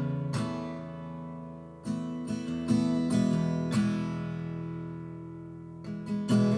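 Background music: acoustic guitar chords strummed every second or so, each left to ring and fade, with a longer pause before a last strum near the end.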